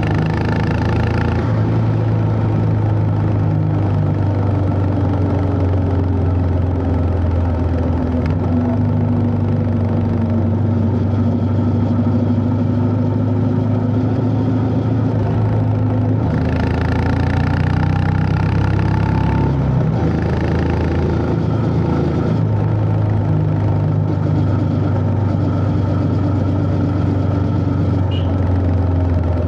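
Honda CB350 H'ness air-cooled single-cylinder engine running under way, its note rising and falling steadily as the throttle is opened and eased.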